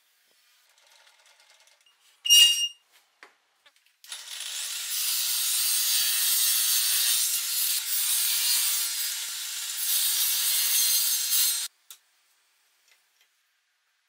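Table saw cutting a thin solid-wood board: a steady, mostly high-pitched cutting noise for about eight seconds that stops abruptly. A brief sharp squeak comes about two seconds in, before the cut.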